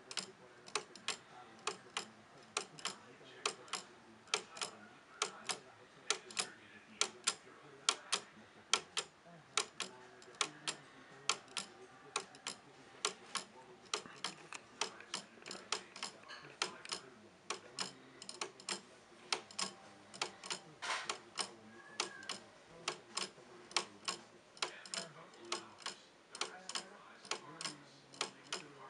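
Wooden-geared pendulum wall clock ticking steadily, its escapement clicking at an even pace of between two and three ticks a second.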